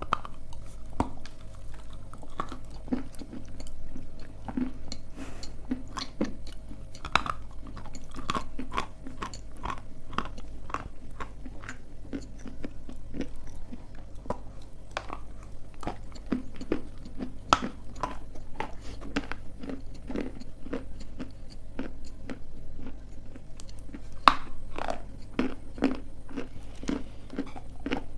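Dry edible clay being bitten and chewed close to the microphone: a dense run of sharp crunches, with a few louder bites about 7, 17 and 24 seconds in.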